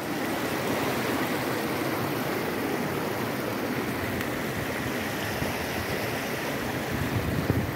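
Steady rush of water flowing over and down from an overflowing reservoir spillway.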